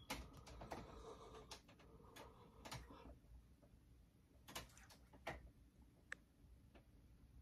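Faint soft clicks and rustles of a tabby kitten playing with a hand on a duvet, scattered irregularly over near silence.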